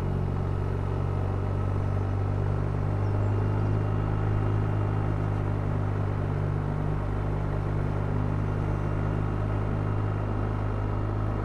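A 2021 BMW R1250RT's boxer-twin engine running steadily as the motorcycle cruises along, an even engine hum with no change in revs.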